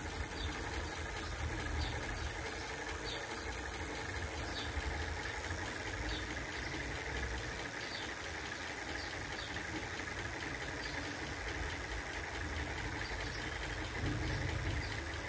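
RKS MX7 electric bicycle's motor spinning the raised rear wheel at full throttle: a steady running hum with the bike vibrating on its stand, which makes it noisier than usual.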